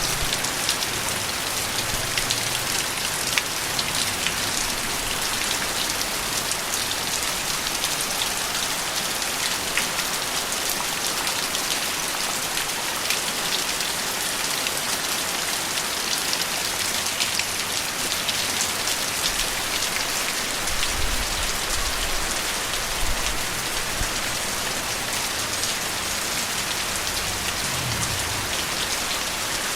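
Steady rain pattering on a surface, a dense hiss of many small drops with individual drip ticks, and no thunder. A faint low rumble runs underneath in the second half.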